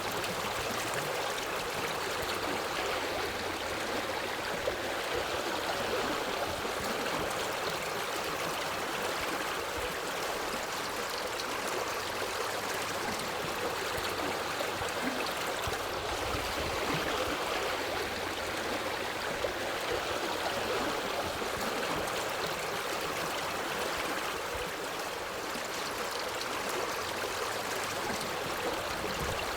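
Forest stream flowing steadily: an even, continuous wash of running water with no change across the whole stretch.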